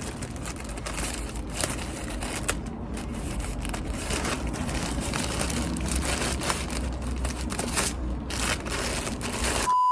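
Packaging rustling and crinkling with scattered small crackles as a parcel is unpacked by hand. Just before the end a steady, loud beep tone starts.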